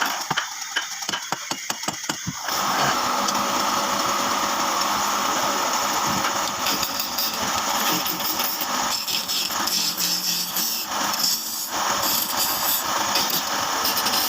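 Woodworking tools at work: a run of evenly spaced strokes, about three a second, for the first two seconds, then a steady machine noise that keeps running and wavers in level.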